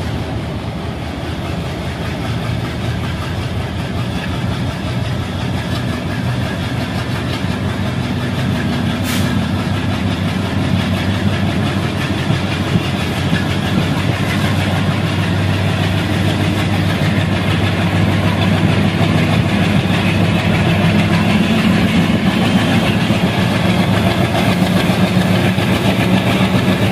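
ALCO diesel locomotive (Indian Railways WDG3A) with its 16-cylinder ALCO 251 engine running steadily, growing gradually louder.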